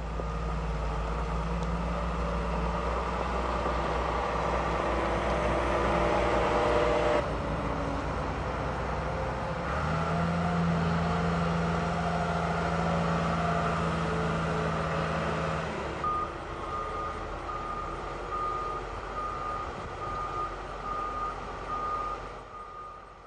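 Diesel engines of John Deere heavy construction machinery running, the engine note shifting abruptly a couple of times. In the second half a backup alarm beeps steadily, the sign of a machine reversing.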